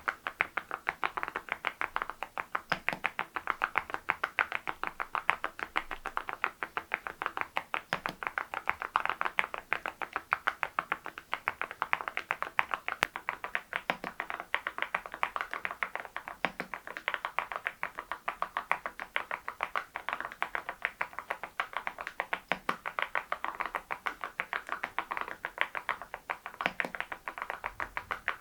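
Steady, fast typing on an Adelie mechanical keyboard fitted with Cerakey ceramic keycaps: an unbroken stream of sharp key strikes, many a second.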